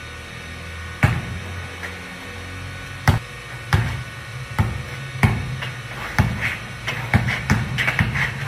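Basketball bouncing on a concrete patio as it is dribbled: a few spaced bounces at first, coming quicker from about halfway through.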